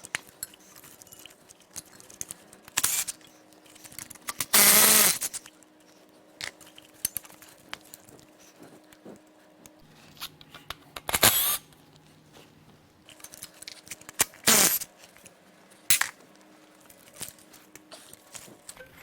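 Metal tools and engine parts clinking, clicking and knocking during hands-on disassembly of the engine. There are several separate sharp sounds, with a longer, louder one about five seconds in.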